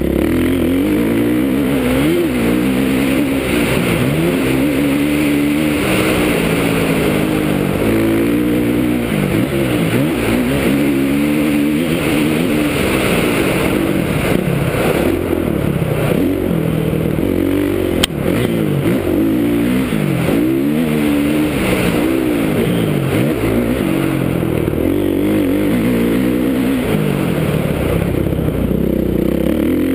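Kawasaki KX450F's single-cylinder four-stroke engine revving up and falling off again and again as the rider works the throttle and gears along a dirt track, heard from a helmet-mounted camera. A single sharp knock is heard about two-thirds of the way through.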